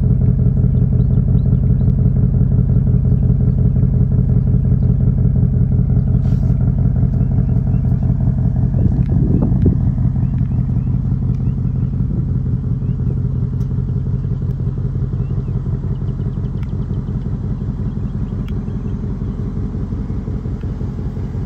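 2024 Ford Mustang GT's 5.0-litre Coyote V8 idling steadily, heard from behind near the quad exhaust tips, growing a little quieter near the end.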